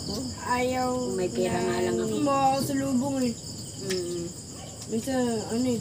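Crickets chirring steadily, a continuous high pulsing trill, with people's voices talking on and off over it.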